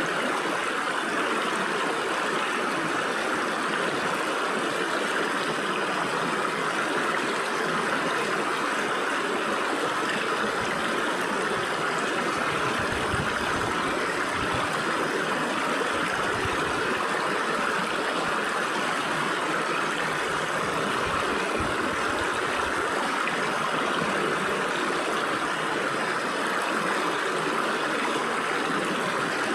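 Stream water flowing and gurgling through gaps between rocks, a steady, even rush of running water.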